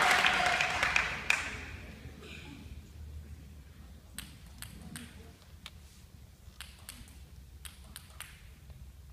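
Applause dying away in the first second or so, then a celluloid table-tennis ball bouncing with sharp light clicks, about nine over four seconds, as the server bounces it before serving.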